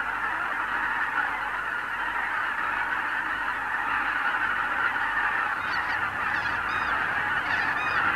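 A large flock of wild geese calling together in a dense, steady chorus of honking. From about two-thirds of the way through, single higher calls stand out above it.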